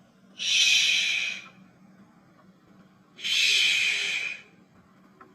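A person saying the English 'sh' sound on its own, twice: each is a held hiss about a second long, with a pause between.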